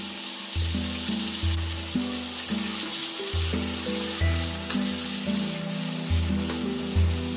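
Eggplant slices sizzling as they fry in hot oil in a metal wok, turned with a wooden spatula. Background music with a bass note that changes about every second plays over the frying.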